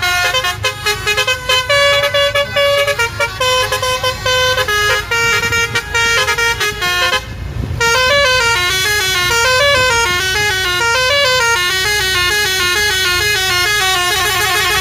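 Basuri multi-tone musical bus horn (telolet) playing a tune of stepped notes. About halfway through there is a short break, then a faster tune of notes that quickly alternate up and down.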